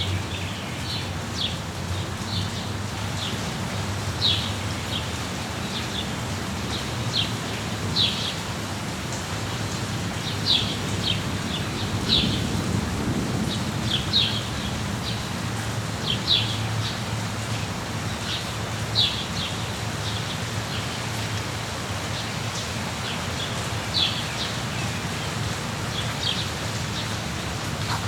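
Steady rain with a low rumble underneath, and birds chirping in short, high notes every second or two.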